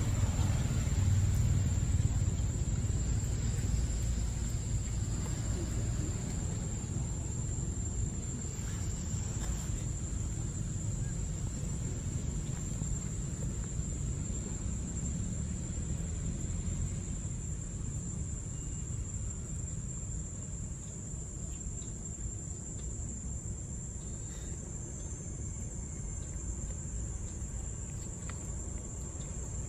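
Insects droning steadily at one high pitch, over a low rumble that is loudest in the first few seconds and then eases off.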